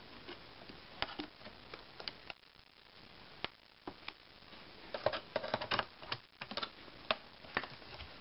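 Small flat screwdriver prying up the plastic hinge-cover trim strip of a Dell Inspiron 1525 laptop: scattered sharp plastic clicks and ticks, with a quick flurry of clicks about five to six seconds in as the retaining clips let go.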